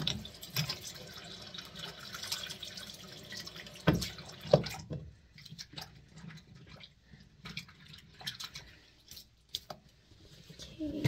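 Water running and dripping at a bathroom sink, with small clicks and a couple of knocks. The steady running stops about five seconds in, leaving scattered drips and clicks.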